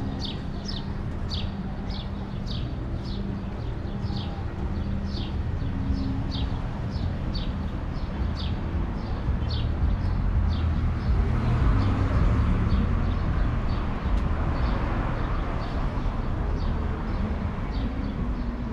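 Street traffic, with a vehicle passing loudest about midway, under a very regular series of short high chirps, about two a second, that fades out near the end.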